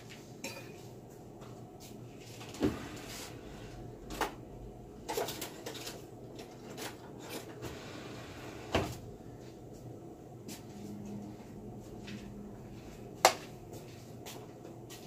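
Scattered sharp knocks and clatters of kitchen things being handled, about five or six of them, with the sharpest a little before the end. Under them runs a steady low hum.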